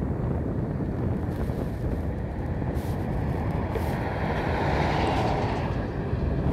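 Wind rumbling on the microphone, with a rushing sound that swells and fades a little after the middle.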